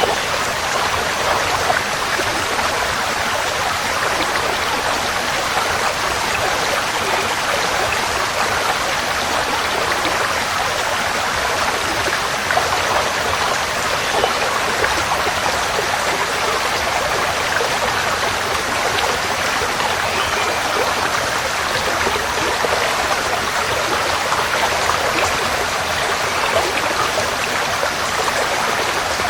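Forest stream flowing over rocks: a steady rush and babble of water with small splashes, even throughout.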